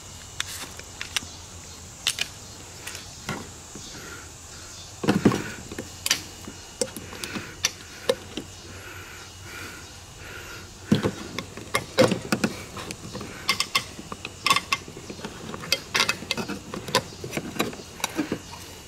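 Metal clicks, taps and scrapes as a tool pries the lid off a Sterno gel fuel can and the cans are handled on a tabletop, in irregular clusters that are loudest about five seconds in and again around eleven to twelve seconds.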